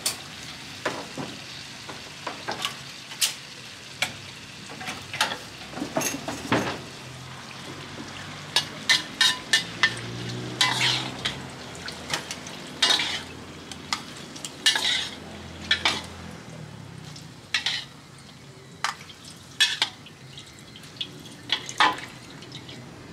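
Sago palm weevil larvae deep-frying in oil in a metal wok: a steady sizzle, with frequent sharp scrapes and clinks as a metal spatula and a wire strainer stir and scoop against the wok. This is their second frying, to crisp them.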